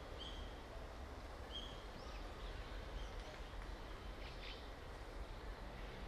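Azure-winged magpies calling, the birds' fuss over a chick fallen into the shrubbery: a few short high notes in the first half and a brief rougher call about four and a half seconds in, over a steady low background rumble.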